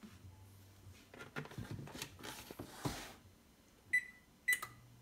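Canola oil poured from a plastic jug into a stainless steel pot, with handling noise and a knock as the jug is set down, then two short beeps half a second apart from the electric range's touch control panel as the burner is switched on.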